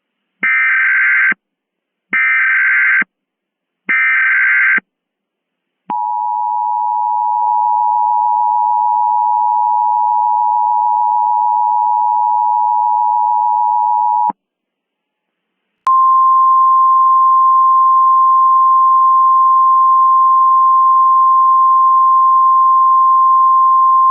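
Emergency Alert System alert tones: three short buzzy bursts of the digital SAME header, then the two-tone attention signal held for about eight seconds. After a brief pause comes a single steady, slightly higher tone.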